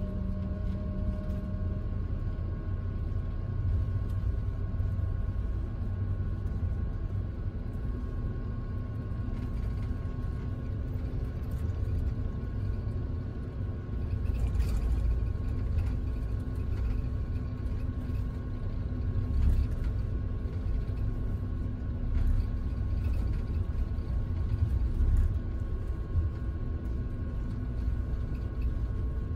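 Cabin noise inside the upper deck of a Scania double-decker coach on the move: a steady low rumble of engine and road, with a faint steady hum above it.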